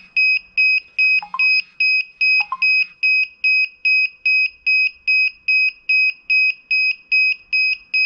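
DJI Mavic Air remote controller beeping steadily: one high, single-pitched beep repeated about three times a second. It is the controller's beep-beep-beep calibration error alert on start-up, cleared by running the remote controller calibration.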